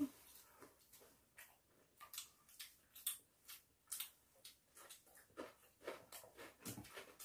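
Faint eating sounds: people chewing, a scatter of soft, irregular clicks and mouth smacks with light chopstick taps.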